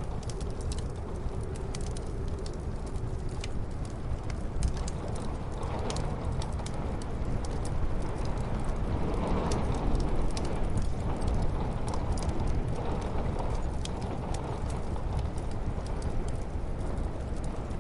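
Wood fire crackling in a fireplace with scattered sharp pops, over the steady low rush of a snowstorm's wind, muffled as if heard through a window.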